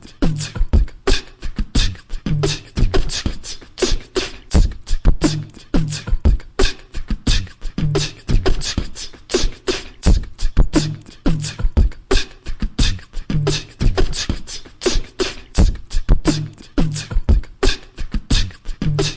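Human beatboxing: a fast, steady groove of vocal kick drums and sharp snare and hi-hat clicks, with a low hummed bass note returning about every two seconds.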